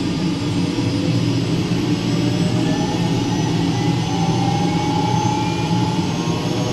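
Rolls-Royce 250-C20B turboshaft of an MD500E helicopter spooling up during its start, a slowly rising turbine whine over a steady low drone. The starter is still held on as the gas producer speed climbs toward 58%.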